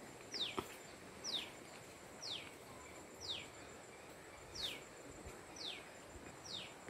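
A bird calling over and over, a short high whistle falling in pitch, repeated about once a second over faint outdoor background noise. A single soft knock sounds about half a second in.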